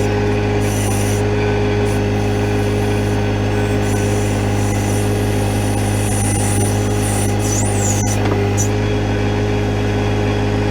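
John Deere 1025R compact tractor's three-cylinder diesel engine running steadily while the backhoe works, with short high-pitched squeaks coming and going over the engine sound.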